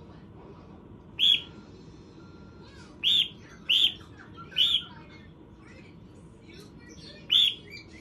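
Cockatiel giving five short, sharp chirps at irregular intervals, one to three seconds apart, over a faint steady background hiss.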